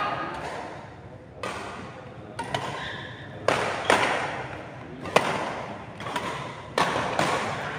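Badminton rackets striking a shuttlecock in a doubles rally: a series of sharp hits roughly a second apart, echoing in a large sports hall.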